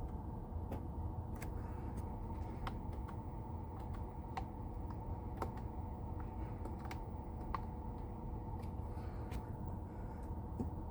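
Light, irregular clicks, about one or two a second, over a steady low hum.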